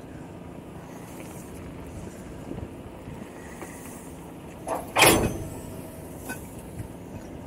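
Heavy truck engine running at low revs while a converter dolly is backed under a trailer, with one loud knock about five seconds in.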